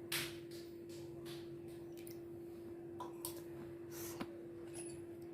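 A few faint clicks and taps of kitchen vessels being handled, over a steady low hum.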